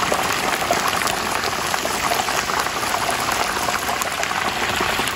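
Whole turkey deep-frying in a pot of hot peanut oil (about 350 °F): a steady, dense sizzle full of small crackles and pops.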